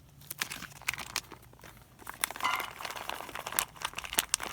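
Food packaging crinkling and rustling, with irregular sharp clicks and taps, as rice is emptied out into a mess kit.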